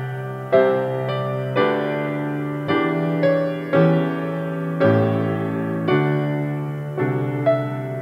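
Slow, soft piano music: chords struck about once a second, each fading away before the next.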